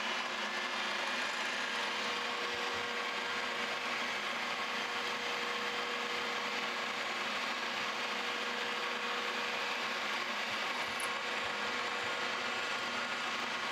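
Milling machine spindle running steadily with a steady whine, its 3/16-inch end mill taking a light cut into a shaft.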